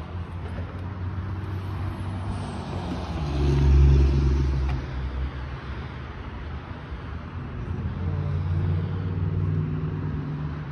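A car's engine running close by, swelling loudly about four seconds in as it passes, then rising again more gently later on.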